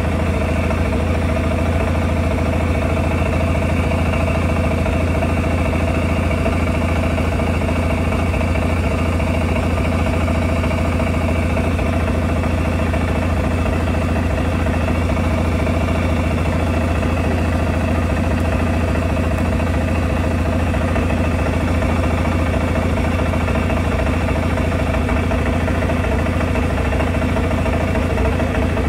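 CFMOTO 600 Touring ATV engine idling steadily, with no change in speed.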